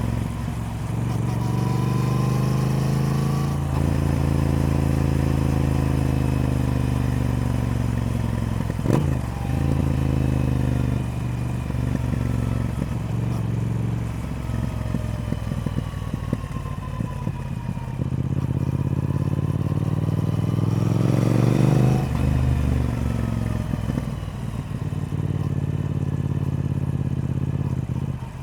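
Triumph Speed Twin's parallel-twin engine under way, its pitch climbing under acceleration and falling off again several times, with short breaks between rises like gear changes, the strongest rise peaking about three quarters of the way through.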